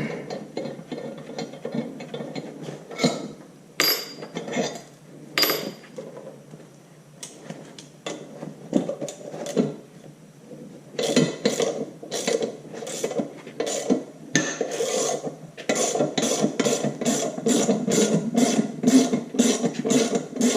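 Hand ratchet wrench clicking as loosened 7/16-inch bolts are backed out of a tractor's brake housing, with scattered metal clinks of tools. The clicks come sparse at first; about halfway through they turn into fast, steady ratcheting.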